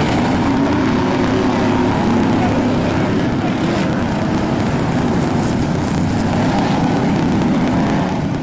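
BriSCA F1 stock car V8 engines running steadily at racing speed, a loud, unbroken drone.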